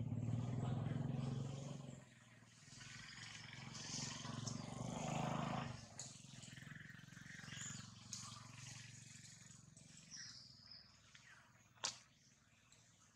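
Outdoor ambience: a low-pitched drone, loudest in the first two seconds and again around four to six seconds in, with faint high bird chirps and one sharp click near the end.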